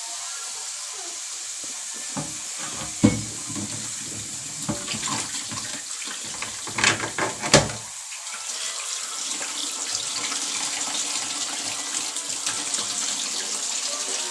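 Tap water running into a kitchen sink, a steady rush that gets a little louder about halfway through. Sharp knocks and clatter, like dishes or utensils in the sink, come about three seconds in and in a quick cluster around seven seconds.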